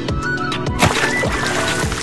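Background music with a steady thumping beat and a melody. A brief noisy burst comes just under a second in.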